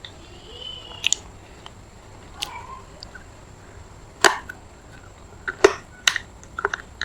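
Someone biting and chewing a piece of semi-wet pure red clay: several separate sharp crunches spaced out over a few seconds, the loudest about halfway through.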